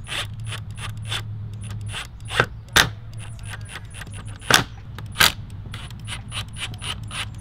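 A hand ratchet clicking while the grille's fasteners are driven in: a rapid, uneven series of clicks with several louder clacks between them.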